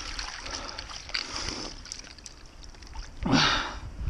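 Water splashing and sloshing around a landing net holding a brown trout in shallow creek water, with the loudest splash about three seconds in.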